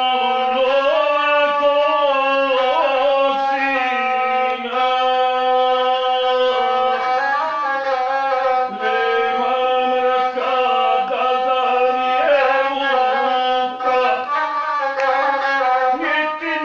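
Gusle, the single-string bowed folk fiddle, played with a bow in a steady droning line while a man sings an epic song over it in the ornamented guslar style.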